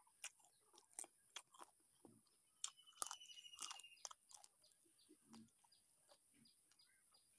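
Close-up eating of fried chicken leg and rice with the fingers: irregular wet chewing, smacking and crunching mouth clicks. A short buzzing trill sounds about three seconds in, over a steady high hiss.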